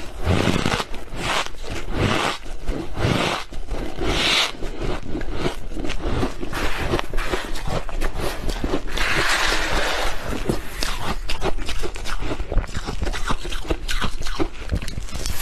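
Freezer frost being chewed close to the microphone: dense, irregular crunching and crackling, with a few longer scraping rasps.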